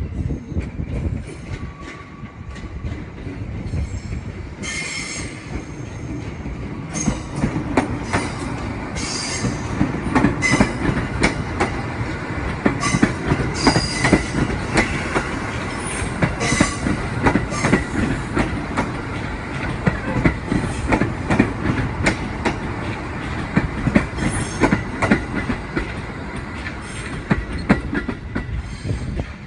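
JR 701 series electric train running through the station tracks, its wheels clacking over rail joints and points and squealing high in several bursts.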